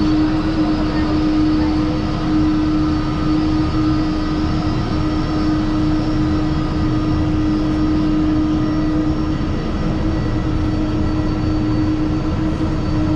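Jet airliner taxiing past, its engines running at low taxi power. The sound is a steady, dense rumble with a constant hum and thin, high, steady whine tones over it.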